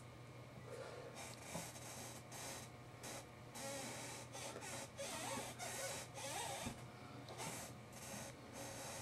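Faint scratchy rustling and brushing from hands, skin and sleeves moving and rubbing together as she signs, in irregular swishes over a steady low electrical hum.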